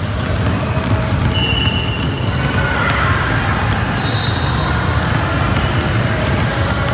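Many basketballs dribbled at once on a hardwood gym floor: a dense, steady patter of overlapping bounces.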